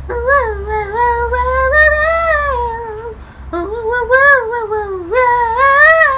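A high-pitched voice singing a wordless tune in long, gliding phrases, with a short break about three seconds in.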